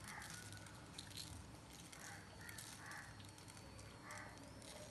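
Near silence: faint room tone, with a few soft, indistinct background sounds.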